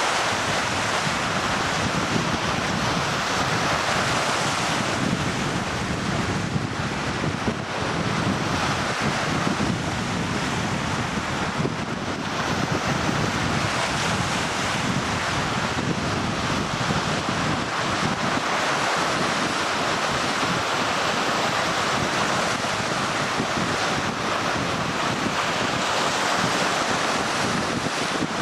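Wind-driven waves breaking and churning on a lakeshore under typhoon-strength wind, with gusts buffeting the microphone; a steady rushing noise.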